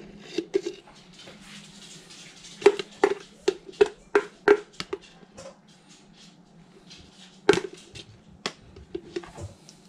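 Metal spoon scraping inside a jar and knocking against its rim and the bowl to shake off a creamy dressing: a quick run of about seven knocks a few seconds in, one loud knock later, then a few lighter taps.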